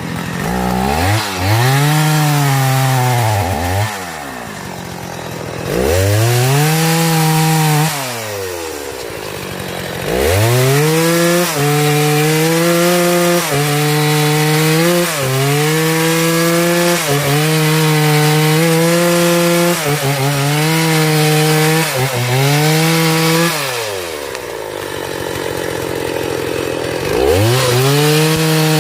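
Two-stroke chainsaw cutting into a tree. It is throttled up to full revs and drops back twice, then holds high revs for about thirteen seconds with brief dips, falls back, and revs up again near the end.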